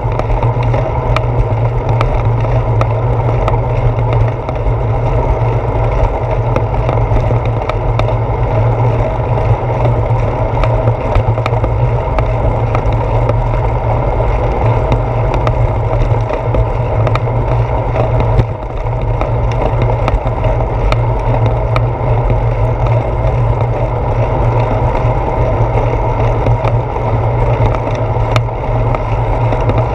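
Bicycle riding fast along a concrete sidewalk, heard through a handlebar-mounted GoPro Hero 4: a steady low rumble of wind and road vibration, with many small clicks and knocks as the tyres run over bumps and seams in the path.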